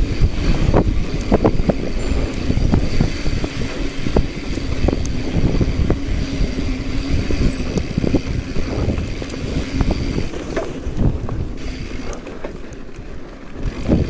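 Bicycle rolling over a rough dirt trail: frame and chain rattling, knocks over bumps, and a freewheel hub buzzing, with wind on the microphone.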